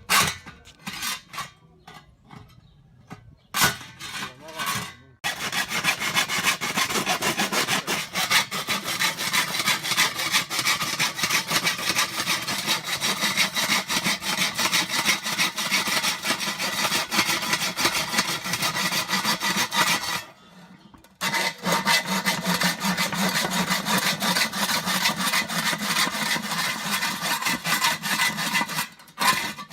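Hand hacksaw cutting into a tank at one of its corners: a few short scrapes at first, then fast, steady back-and-forth strokes that stop briefly about two-thirds of the way through and again near the end.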